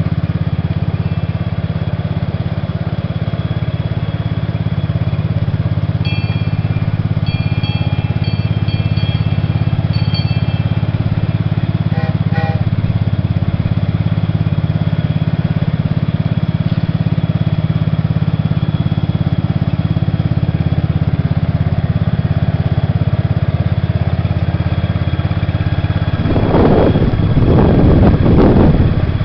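Cub Cadet lawn tractor engine running steadily as it pulls a two-car trackless train, getting louder with a rough surge near the end as it comes close.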